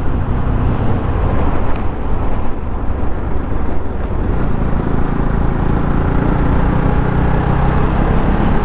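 Motorcycle running under way, its engine note under heavy wind and road rumble on the microphone; the engine tone comes through more clearly in the second half.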